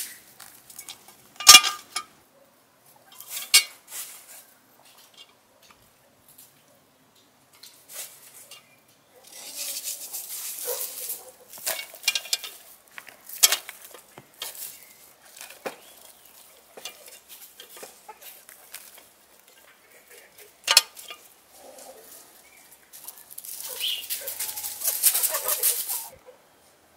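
Hands layering sliced onion and green pepper into an aluminium pot of raw beef ribs: soft rustling of the vegetables and a few sharp clinks and knocks against the pot, the loudest about a second and a half in. Hens cluck in the background.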